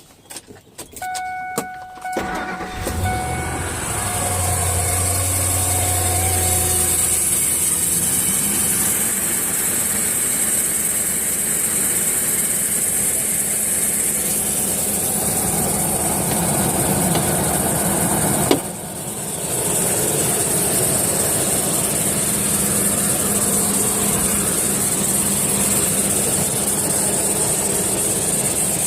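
A few clicks, then a car engine cranks and starts about two and a half seconds in and settles into idle with a steady high-pitched whine, the noise that is being traced to either the drive belt or a pulley bearing. The whine drops out briefly with a click about two-thirds of the way through, then returns.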